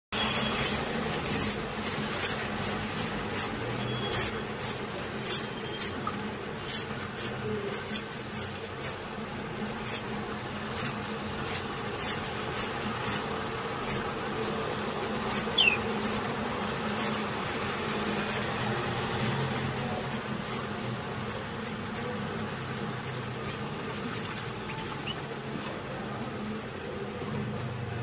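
Canary nestlings begging: a fast run of thin, high cheeps, several a second, as the chicks gape at the parent for food. The cheeps thin out near the end.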